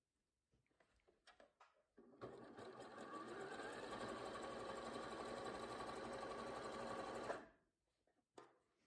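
bernette b38 computerized sewing machine running steadily for about five seconds, sewing a zigzag stitch through thick knitted wool and elastic, then stopping abruptly. A few faint handling clicks come before and after.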